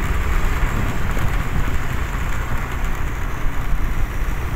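Steady wind rush on the microphone and low road rumble from a vehicle moving along an asphalt road.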